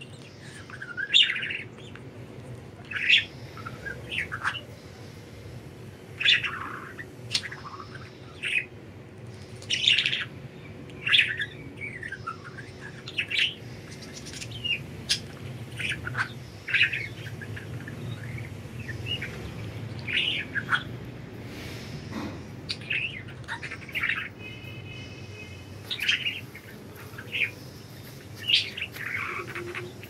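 Budgerigars chirping: short, sharp chirps coming irregularly about once a second, with a brief steady warble about 25 seconds in.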